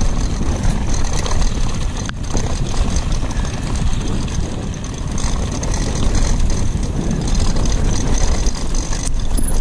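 Steady low rumble of wind buffeting the microphone during a bike ride, with rolling and rattling noise and a thin, steady high whine.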